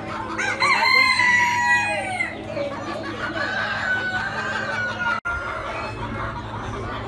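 Roosters crowing: one loud crow about half a second in, then a second, longer crow that slowly falls in pitch and is cut off abruptly about five seconds in.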